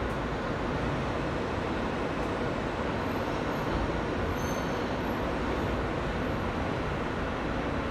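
Steady running noise inside an R160 subway car under way through a tunnel: a constant rumble and rush of wheels on rail, with no braking or stopping.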